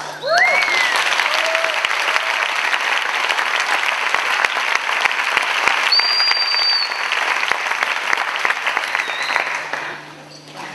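Audience applauding, with a few whoops at the start and one high held whistle about six seconds in. The applause dies away near the end.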